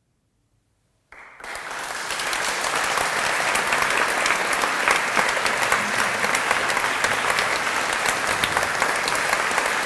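Concert hall audience applauding: a second of near silence, then clapping breaks out suddenly and quickly swells to steady, full applause.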